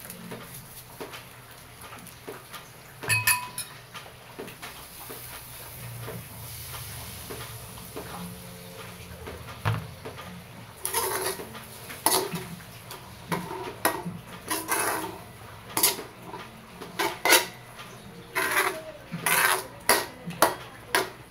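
A spatula scraping and knocking against a honeycomb stainless steel wok while flaked fried milkfish is stir-fried. There is one ringing clink about three seconds in. From about eleven seconds in come repeated sharp strokes, one or two a second.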